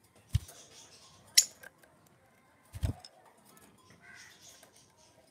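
Lovebirds moving about a wire cage and a wooden nest box: scattered clicks and taps of claws and beaks on wire and wood, the sharpest about a second and a half in. Two dull thumps and some soft rustling.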